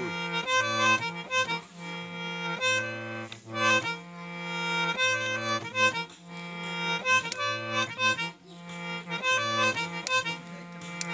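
A small accordion playing a tune, with melody notes over held bass chords that change every second or so.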